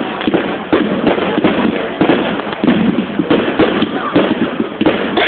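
Fireworks display: shells bursting in rapid succession, a dense run of sharp bangs and pops, several a second, over a continuous crackling din.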